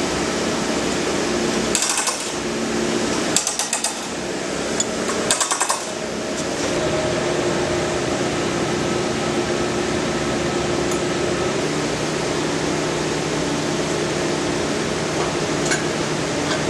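Steady mechanical hum of running machinery, with short bursts of rapid rattling clicks about two, three and a half and five and a half seconds in.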